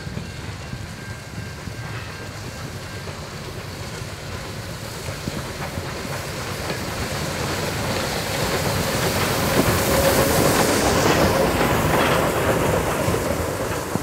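Ex-Victorian Railways J class 2-8-0 steam locomotive J549, running light engine with its tender and no carriages, approaching and passing on the rails. It grows louder to its loudest about ten seconds in, then fades as it goes by.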